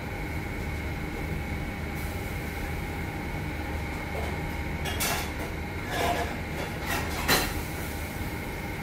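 Steady low machine hum with a faint constant whine, and a few short knocks and clatters about five to seven seconds in.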